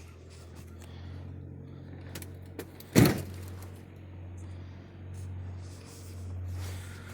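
A vehicle door shutting with one sharp thud about three seconds in, after a couple of small clicks, over a steady low hum.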